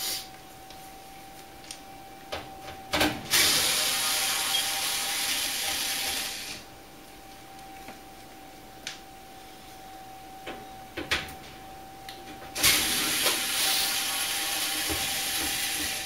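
Cordless screwdriver running in two bursts of about three seconds each, backing screws out of the dryer's sheet-metal panel, with a few sharp clicks of handling in between.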